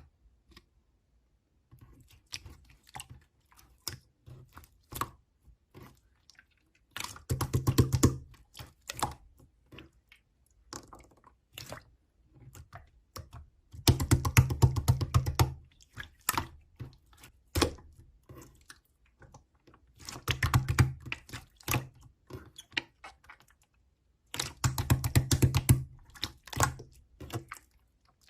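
Sharp clicks and taps, scattered singly at first and then in four bursts of very rapid clicking with a low hum under them.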